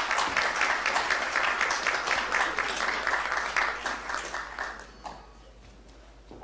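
Audience applauding, the clapping fading out about five seconds in.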